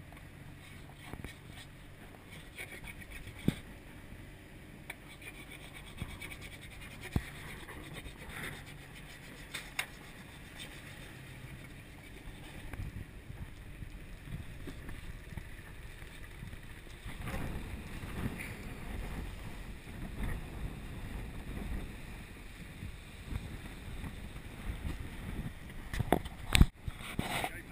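Sailing yacht under way: water rushing along the hull with wind noise, growing louder about two thirds of the way through. A few sharp knocks are heard, the loudest near the end.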